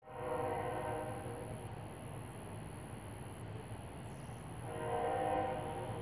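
Locomotive horn sounding twice: a chord blast at the start that fades within about a second, and a second blast about four and a half seconds in lasting about a second, over the train's steady low rumble.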